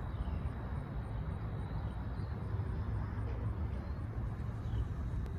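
A steady low rumble, with a few faint high chirps over it.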